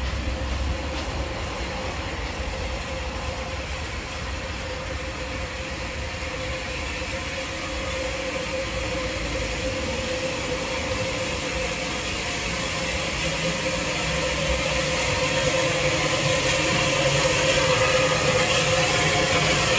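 Unrebuilt Bulleid West Country class steam locomotive 34092 City of Wells running slowly into a station, growing steadily louder as it draws close and passes, with a steady squealing tone under the running and more steam hiss near the end.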